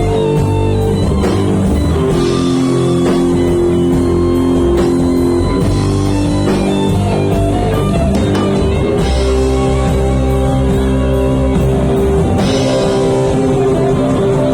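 Band playing rock music at a sound check: guitar chords held over a drum kit's steady beat.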